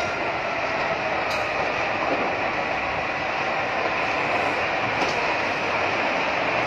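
Large fire at a plastic factory burning, a steady roar and crackle with three sharp cracks.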